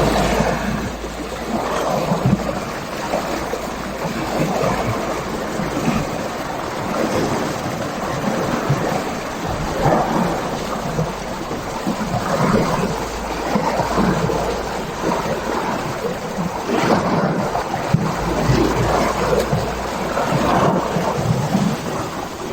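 Sea water washing and slapping in irregular surges, with a low rumble that comes and goes.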